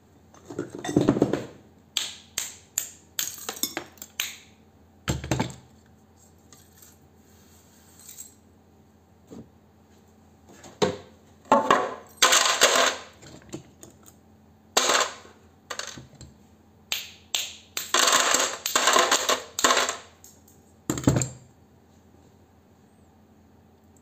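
Thin steel transformer laminations clinking and clattering as they are worked loose from the core and dropped into a plastic bin. The sound comes in irregular clusters of sharp metallic clinks with short pauses, and there are a few duller knocks among them.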